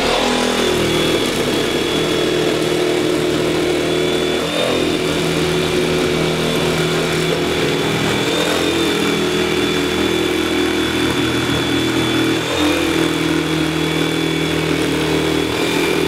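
Corded electric jigsaw running continuously while cutting through a sheet of white wall panelling, a steady motor whine with a reciprocating blade buzz; the motor note dips slightly a few times as the blade takes more load.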